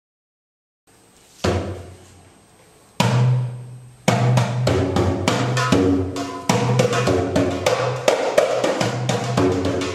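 Instrumental background music that starts about a second in with a few heavy drum hits, then settles from about four seconds into a steady, busy percussion rhythm over a low sustained bass.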